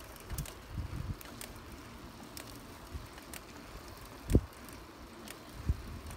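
Bicycle rolling along a wet asphalt path: low tyre rumble with light rattles and clicks, and two louder knocks in the second half as it goes over bumps.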